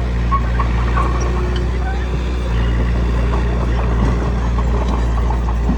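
Bulldozer diesel engine running steadily under work, its low note shifting about halfway through, with scattered short clicks and squeaks over it.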